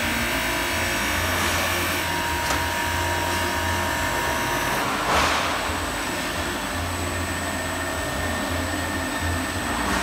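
Industrial glass-processing machine running, its pad-chain conveyor turning: a steady mechanical hum and whir with faint high steady whines, and a short surge of hiss about five seconds in.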